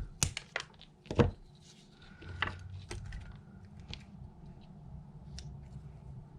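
Wire cutters snipping and clicking as a wire end is trimmed shorter: a few sharp clicks in the first three seconds, the loudest a little over a second in. A low steady hum sits underneath from about two seconds in.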